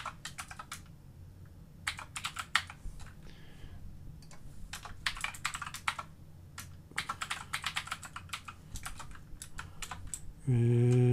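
Typing on a computer keyboard: bursts of quick key clicks with short pauses between. A man's voice begins near the end.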